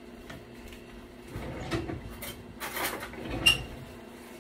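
Wooden spoon stirring a pot of watery rice and ground-beef mixture, a couple of seconds of scraping and sloshing, followed by one sharp clink against the pot about three and a half seconds in.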